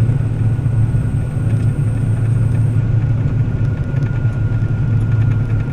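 Combine harvester running steadily during wheat harvest, heard from the cab: a constant low engine drone with a faint steady whine above it.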